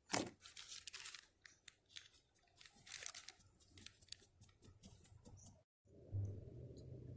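Plastic packaging crinkling and tearing in many quick crackles as the windshield repair kit's cure strip is taken out. A brief break comes just before the end, followed by a faint steady low hum.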